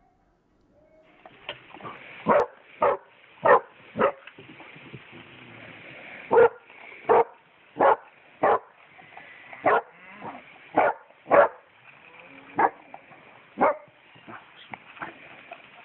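Basset hounds barking repeatedly: about a dozen loud barks at uneven intervals, several in quick pairs, starting about a second in.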